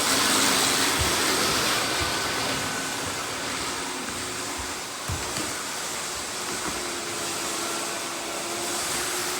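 Several robot vacuum cleaners running at once: a steady hiss of fans and brushes with faint whining tones, and a few light knocks.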